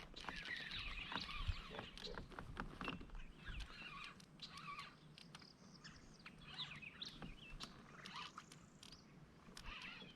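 Small birds chirping and calling repeatedly, with scattered light clicks and taps.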